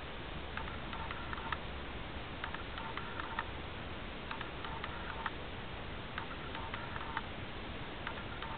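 A faint patterned chirping of clicks and mid-pitched tones, each bout lasting about a second and repeating about every two seconds, over a steady low rumble.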